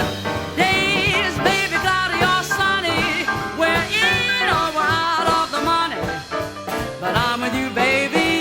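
Swing-style jazz recording: band accompaniment under a melody line with strong vibrato, likely the singer's voice.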